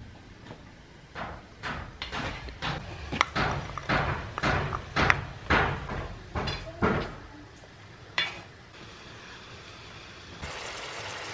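A series of sharp knocks, about two a second for several seconds, then a single knock, followed near the end by a steady hiss.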